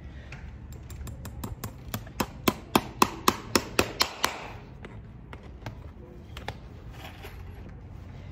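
A farrier's driving hammer tapping a hand-held horseshoe fitted with hoof-pack mesh. There are about fifteen quick strikes, roughly four a second, building to louder blows and then stopping, with one more light tap a couple of seconds later.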